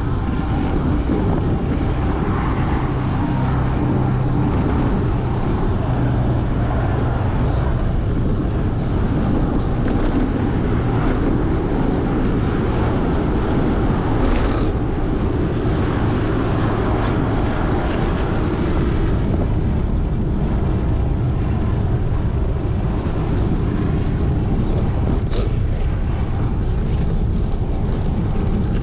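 Steady wind rumble and riding noise on the microphone of a GoPro carried on a moving fixed-gear bicycle.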